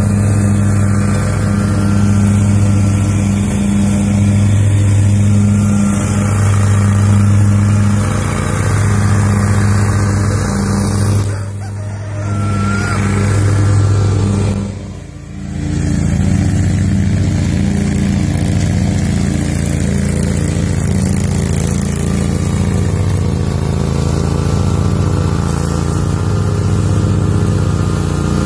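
An engine running steadily with a low, even hum, its level dropping away briefly twice about halfway through.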